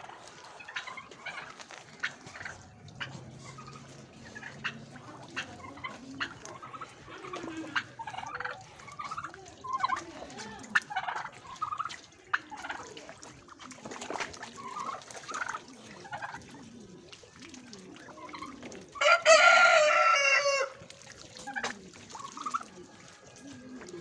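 Farmyard chickens clucking, with scattered short calls throughout, and a rooster crowing once, loudly and for under two seconds, about three quarters of the way through.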